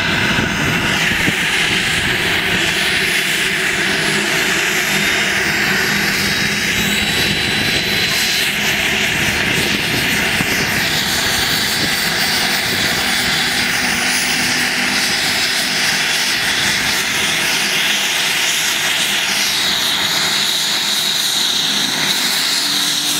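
US Coast Guard Dolphin (Eurocopter Dauphin) helicopter running on the ground during startup: its twin turboshaft engines and rotor make a loud, steady noise, with a high turbine whine that climbs slowly in pitch as the engines spool up.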